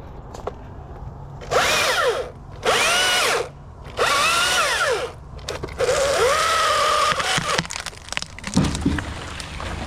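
Chainsaw run in four short bursts, each a whine that rises briefly and then falls in pitch as the chain loads up in the wood.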